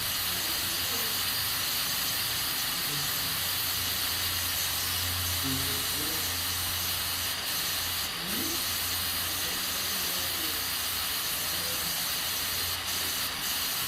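Aluminium pressure cooker hissing steadily as steam escapes from its valve while it cooks under pressure.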